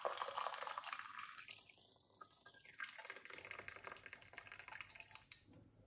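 Lemon ginger turmeric tea pouring through a metal mesh strainer into a glass, splashing, with the stream thinning to a trickle toward the end.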